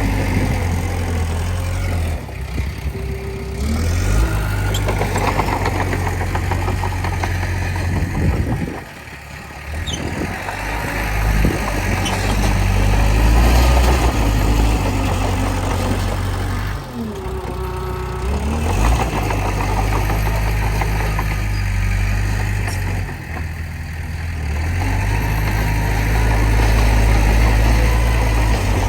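Diesel engine of an earth-moving machine running under load, its level rising and falling as it works, with brief drops in power about 9 and 17 seconds in.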